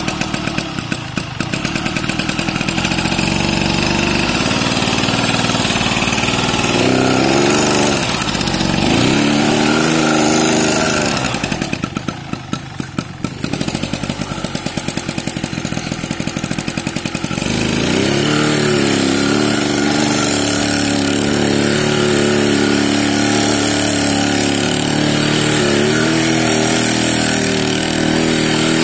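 Yamaha RX 135's two-stroke single-cylinder engine revving up and down repeatedly as the rear wheel spins on grass in a burnout. Around twelve seconds in it drops to a lower, slower run for a second or two, then revs up again.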